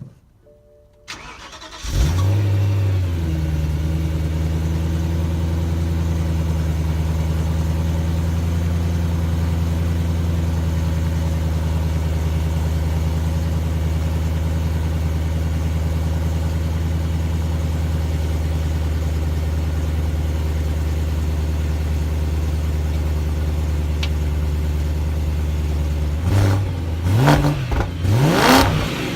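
Stock BMW M3 engine and exhaust starting about two seconds in, flaring briefly before settling into a steady idle. Near the end it is revved in several quick throttle blips, the pitch rising and falling each time.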